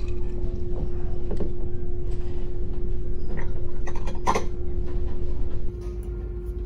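Chopsticks and tableware clinking against plates and dishes a few times, the loudest about four seconds in, over a steady low hum; the hum drops in level near the end.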